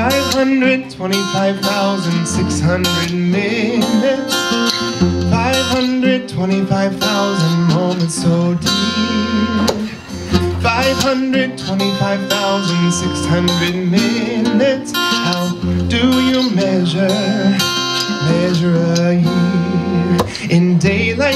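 Acoustic guitar strummed and picked, playing a song's chord accompaniment steadily.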